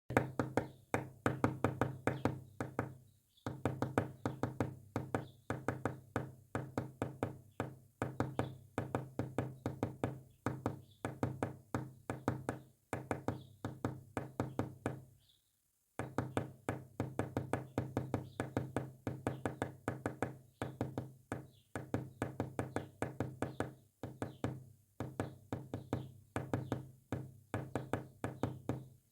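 Morse code sent as rapid knocking clicks, each dying away quickly, over a steady low tone. The clicks come in runs broken by short pauses, the longest about 15 seconds in.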